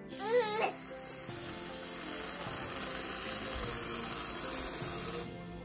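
Aerosol can of whipped cream spraying: a steady hiss of about five seconds that cuts off sharply near the end.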